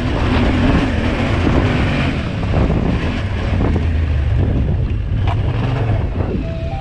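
Yamaha Ténéré 700's parallel-twin engine running with the bike under way, with wind buffeting the action-camera microphone. Music comes in near the end.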